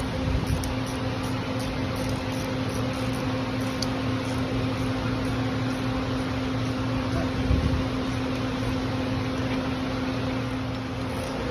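Air conditioner running with a steady droning hum, with a dull knock about seven and a half seconds in.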